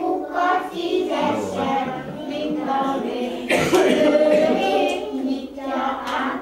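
A group of young children singing together, with a sudden louder noisy sound a little past halfway.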